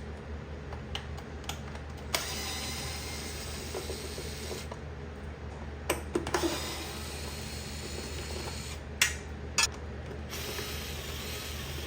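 Scattered sharp clicks and knocks of hand work on the plastic side panel of a Razor RSF650 electric motorbike as it is taken off. A steady low hum runs underneath.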